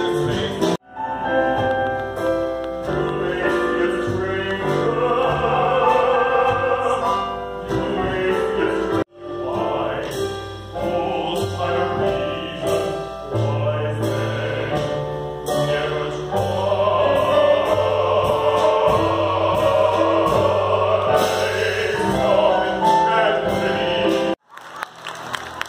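Operatic-style singing with accompaniment, voices holding long notes over a steady low bass line. The music breaks off abruptly for an instant twice, about a second in and about nine seconds in, then stops a second or so before the end, giving way to applause.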